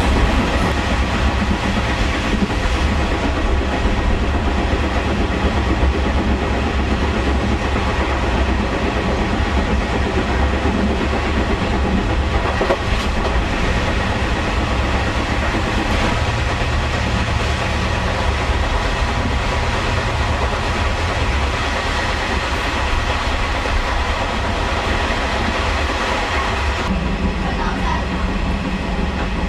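Taiwan Railway blue-liveried ordinary train, hauled by a GM diesel locomotive, running along the track: a loud, steady rumble with rail clatter. Near the end the high hiss drops away and a lower hum comes up.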